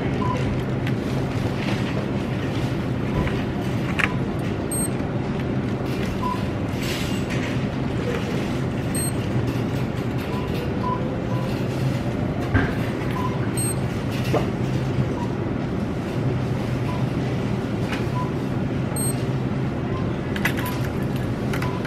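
Steady car cabin noise while driving: a constant low engine and road hum, with a few faint ticks.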